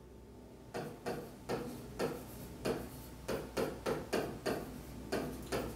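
Stylus pen tapping and clicking against a touchscreen display while writing a word: a string of light, slightly irregular clicks, about three a second.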